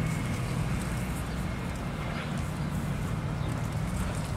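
Steady outdoor background noise: a low hum under an even hiss, with a few faint ticks.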